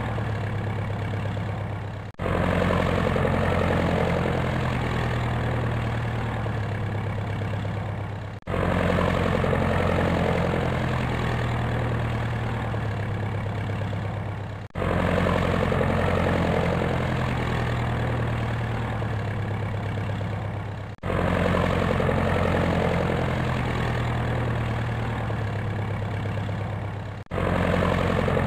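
Helicopter engine and rotor running steadily. It is a short recording looped about every six seconds, with a brief drop in level at each join.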